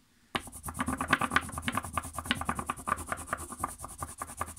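Wax crayon rubbed quickly back and forth over a sheet of paper laid on a leaf, making a leaf rubbing: a fast run of scratchy strokes that starts about a third of a second in.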